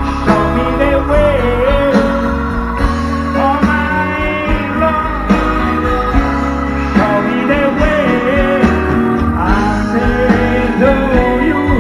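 Live blues band played over a PA and heard from within the crowd: an instrumental passage with a bending, wavering lead melody over a steady bass line, before the vocals come in.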